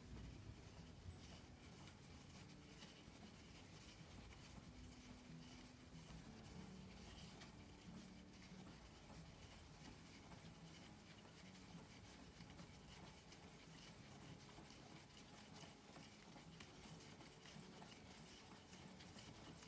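Faint rubbing and scratching as handspun single-ply yarn is wound by hand onto a cardboard-tube bobbin, drawn off a spindle turning in a shoebox holder.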